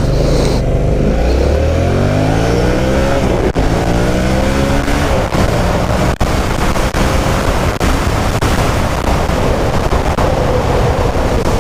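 Yamaha MT-07 (FZ-07) parallel-twin engine pulling away from a stop, its note climbing in pitch through the gears with brief dips at the shifts, then running steadily at speed.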